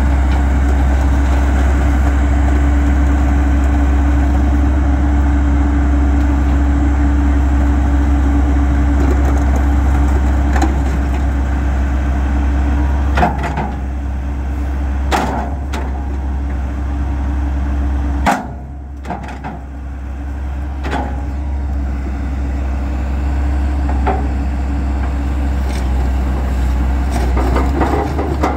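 Kobelco SK210LC-9 hydraulic excavator running with a steady low diesel drone while the boom and grapple are worked, with a few sharp clunks along the way. The engine sound dips briefly about two-thirds through, then comes back.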